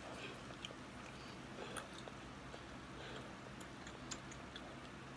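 Close-miked eating sounds: sparse small clicks and soft mouth noises of someone chewing seafood, over a faint steady hum.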